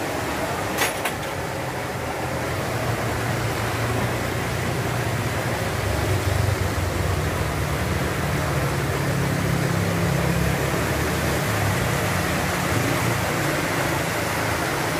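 Steady rushing of a fast-flowing creek, with a low rumble underneath. A brief sharp click about a second in.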